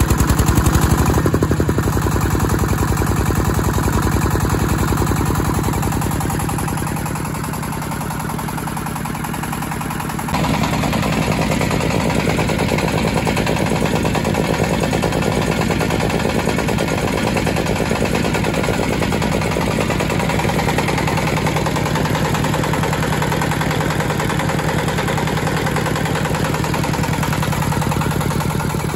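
A 25 hp single-cylinder diesel engine running at a steady speed and belt-driving a piston air compressor, with a steady chugging from its firing strokes. The sound dips slightly for a few seconds, then steps up abruptly about ten seconds in.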